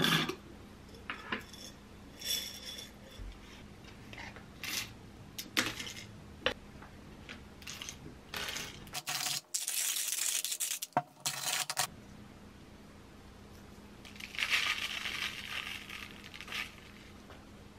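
Roasted coffee beans clicking and clinking as they are spooned from a glass jar into a wooden hand-crank coffee grinder. About nine seconds in there are a few seconds of dense crunching as the beans are ground, and near the end a soft rustling pour as the grounds slide into a paper filter.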